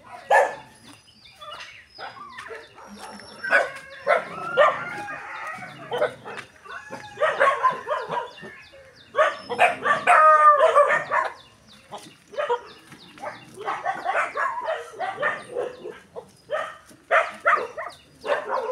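A pack of kennelled street dogs barking and yelping over one another, with a longer wavering call about halfway through.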